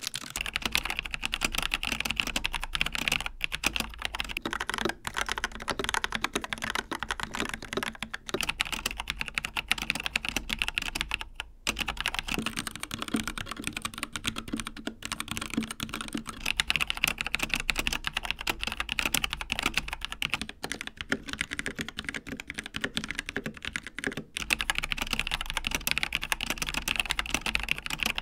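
Fast, continuous typing on a succession of mechanical keyboards. First a Logitech G915 with GL Linear Red switches, then a Dark Project KD87A with G3ms Sapphire switches, an Endorfy Thock Compact Wireless with Kailh Box Black switches, and a Discord TKL keyboard with Gateron Red switches. The keystroke clatter is dense, with a few brief pauses where one keyboard gives way to the next.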